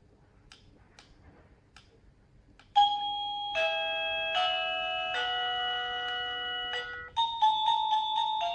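SadoTech wireless doorbell receiver playing an electronic chime melody, held notes changing pitch every second or so. It is preceded by a few faint clicks and switches to a quicker tune of short notes about seven seconds in.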